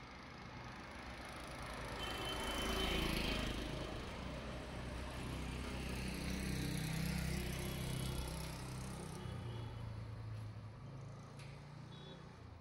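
Street traffic: a motor vehicle passes, loudest about three seconds in, then a steady low engine hum that fades near the end.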